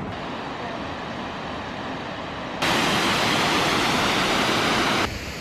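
Tortum Waterfall's falling water: a steady rushing noise, fainter at first, that jumps suddenly much louder about halfway through and drops back just before the end.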